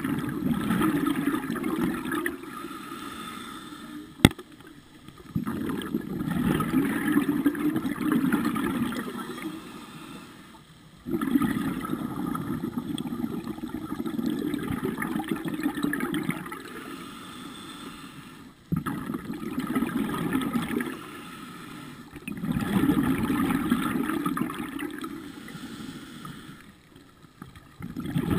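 Scuba diver breathing through a regulator underwater: a gurgling rush of exhaled bubbles comes every five to six seconds, with quieter inhalations between. A single sharp click sounds about four seconds in.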